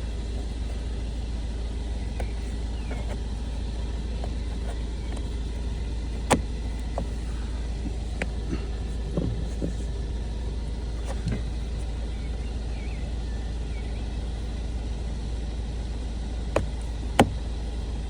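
Audi TTS's 2.0-litre turbocharged four-cylinder engine idling as a steady low rumble, with a few sharp clicks about six seconds in and twice near the end.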